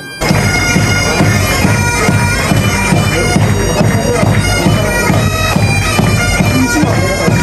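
Bagpipes playing a march tune, their drones held steady under the melody, over a regular low beat. The music cuts in suddenly just after the start.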